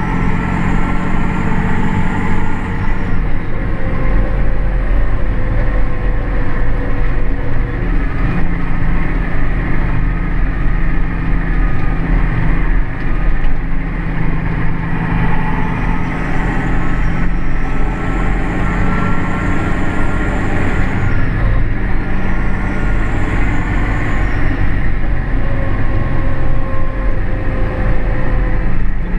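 Massey Ferguson 6499 tractor's six-cylinder diesel engine running steadily, heard from inside the cab, with a faint whine that drifts slowly in pitch.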